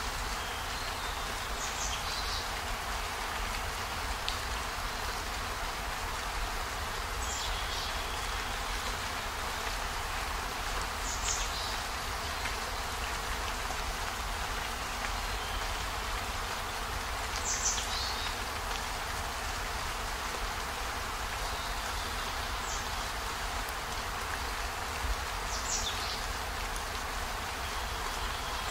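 Steady rain falling, an even hiss with a low rumble beneath, and a short high chirp that falls in pitch every few seconds.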